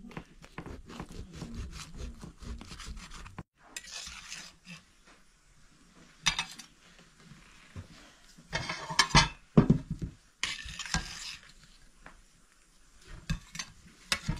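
Knife cutting through a pizza's crisp crust on a metal tray, a dense run of small crunching clicks. After a break, several separate scrapes and clatters on the metal tray as slices are lifted off, the loudest about nine seconds in.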